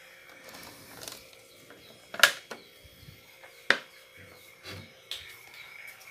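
Kitchen handling noise: two sharp knocks about a second and a half apart, with a few lighter clicks and clatters around them.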